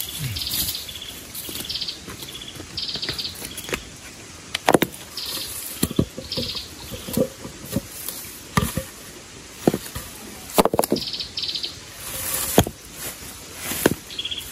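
Scattered sharp knocks and clatters as a campfire hearth is built by hand, over short, high, rapidly pulsed trills from forest creatures repeating about once a second.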